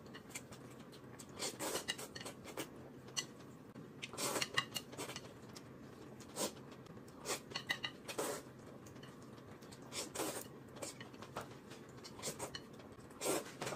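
Eating noodles with chopsticks: faint, irregular clicks of chopsticks against a plate, mixed with short slurps and chewing noises.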